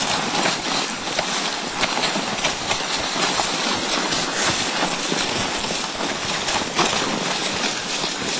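Dog sled running over packed snow: a continuous scraping of the runners with a constant irregular clatter and knocking from the moving sled.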